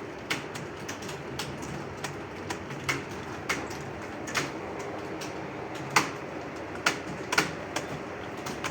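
Computer keyboards clacking irregularly as several people type at once, a few keystrokes a second, some louder than others.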